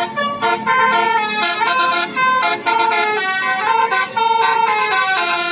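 Basuri 'telolet' multi-tone bus horn playing a quick melody, its notes changing every fraction of a second.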